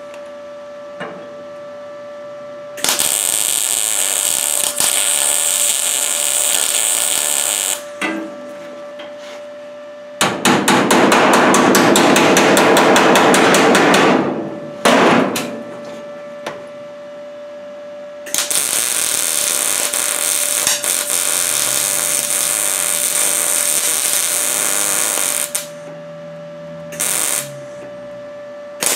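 Arc Captain MIG 200 welder running on sheet-steel cowl panels in separate bursts of a few seconds each: a five-second run about three seconds in, a louder four-second run of rapid, even ticking around the middle, a long run of about seven seconds later on, and short blips between. A steady faint hum sits underneath.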